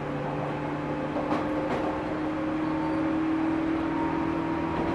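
JR 205 series electric train running, heard from inside a motor car fitted with MT61 externally-ventilated traction motors: a steady whine of several tones from the motors and gearing over the rumble of the wheels. Two brief clicks come about a second and a half in.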